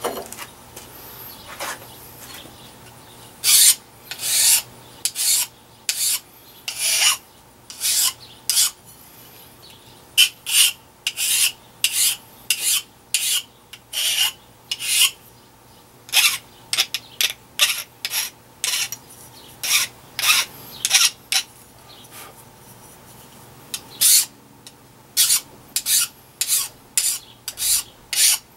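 Hand file rasping across the edge of a piece of metal in repeated push strokes, about one or two a second. The strokes stop for a couple of seconds near the start and again about three quarters of the way through, then resume.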